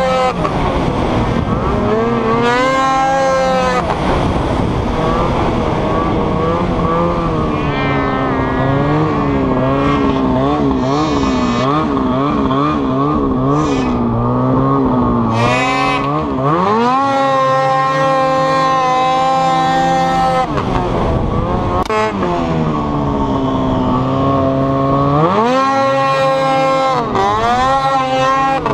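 800cc two-stroke mountain snowmobile engine running under the rider, its pitch climbing and falling with the throttle. It wavers quickly on and off the throttle in the middle, then revs up steeply about two-thirds of the way through and again near the end.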